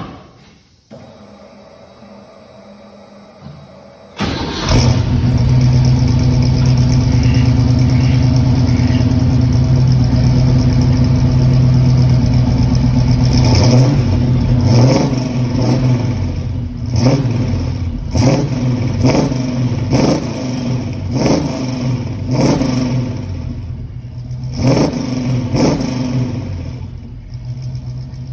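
1969 Pontiac Firebird engine, on freshly repaired Holley Sniper fuel injection, catching and starting about four seconds in, then holding a steady fast idle. From about halfway on the throttle is blipped again and again, short revs about a second apart, before it settles back toward idle near the end.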